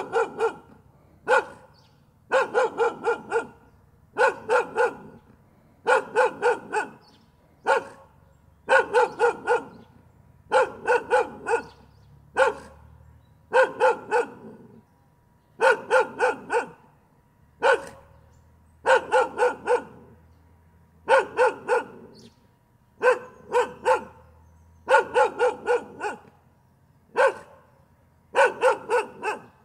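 A dog barking continuously in quick runs of one to five sharp barks, the runs coming every second or two.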